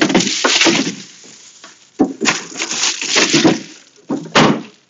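Clattering, rustling and knocks of kitchen items being rummaged through and handled, in three bunches, ending with two sharp knocks near the end.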